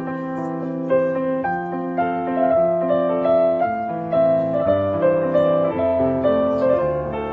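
Background piano music, with held notes and chords changing about once a second.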